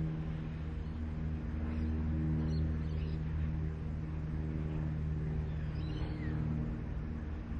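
Several diesel locomotives hauling a heavy container freight train, their engines running with a steady, deep drone.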